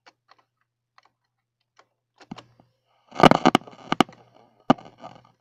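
Handling noise: a few scattered clicks, then a clatter of knocks about three seconds in and one more sharp click near the end, with a low steady hum coming in just over two seconds in.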